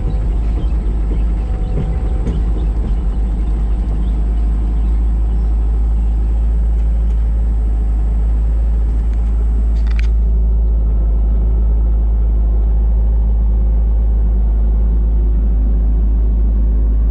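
Heavy diesel engine running steadily with a deep rumble, as from a truck or heavy machine under way, with a brief click about ten seconds in.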